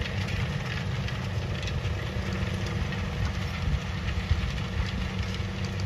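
John Deere tractor's diesel engine running steadily at an even pitch, with faint scattered clicks over it.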